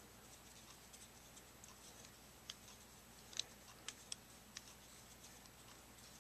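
Near silence broken by about five faint metallic clicks between two and five seconds in: a screwdriver turning a mixture adjustment screw into a two-stroke trimmer carburetor's aluminum body.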